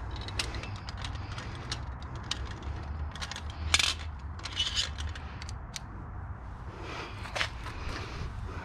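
Clicking and clattering of a rack of screwdrivers being handled, the tools knocking against their plastic holder, with the loudest clacks about four seconds in and again near the end.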